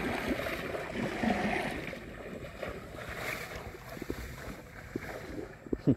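Water sloshing around a small boat, with wind on the microphone; a brief loud thump just before the end.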